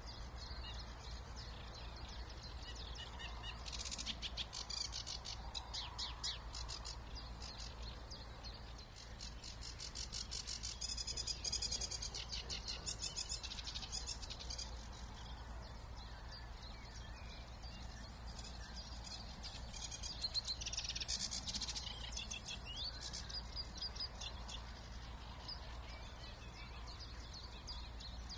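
Songbirds singing in spring: three bursts of rapid, repeated high notes of a few seconds each, over a low steady rumble.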